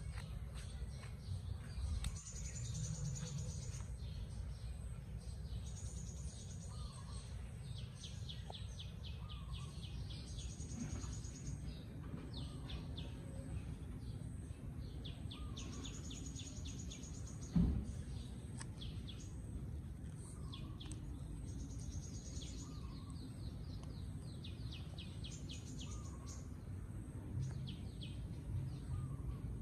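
Outdoor ambience with birds chirping: short, high, rapid trills that come again every few seconds over a low steady background noise. One dull thump about 18 seconds in.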